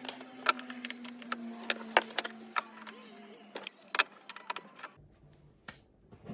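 Rapid light clicks and clinks of small hard objects being handled, under a held music note that fades out in the first few seconds; after about five seconds it drops to a quieter room with a few faint knocks.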